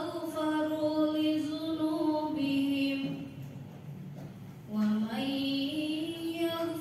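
A woman's solo Qur'an recitation (tilawah) in Arabic, chanted into a microphone in long, drawn-out melodic notes. One phrase ends a little past halfway, and after a breath of about a second the next phrase begins.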